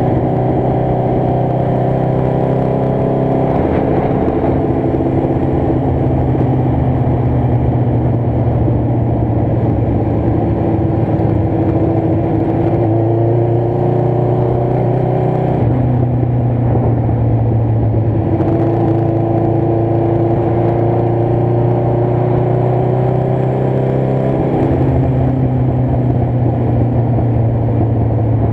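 Motorcycle engine running under way, its note sliding slowly up and down with the throttle and changing abruptly a few times, as at gear changes.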